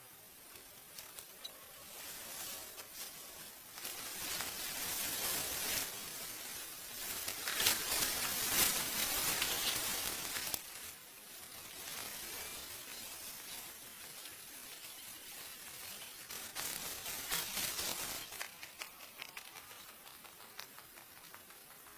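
Dry rice stalks and straw rustling as they are handled, an uneven crackly rustle that swells and fades, loudest in the middle.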